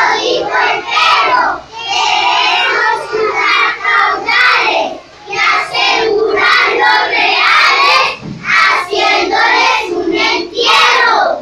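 A group of young children singing together in unison, in short phrases with brief pauses between them.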